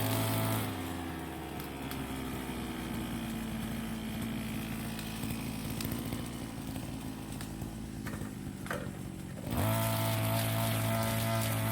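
Brush cutter engine running steadily. Background music cuts out just after the start and comes back in near the end.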